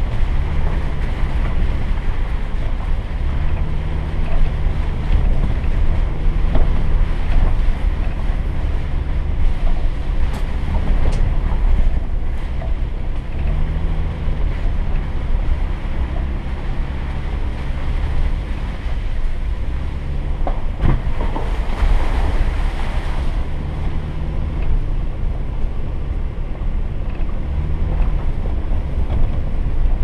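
A Jeep creeping along a rough dirt trail: a steady low engine and drivetrain rumble whose note rises and falls a little every few seconds, with wind noise on the microphone. A few sharp knocks come about two-thirds of the way through as it goes over the bumps.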